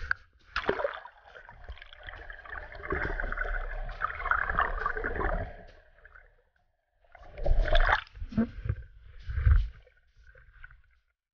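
Sea water splashing and gurgling over an action camera dipped below the surface beside a boat. The sound is rough and uneven, with a short lull after the middle and louder splashy bursts near the end.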